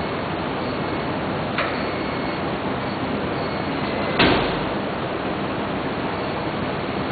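Homemade robot running with a steady mechanical hiss, its arm giving a light click about one and a half seconds in and a louder knock against the wooden door about four seconds in.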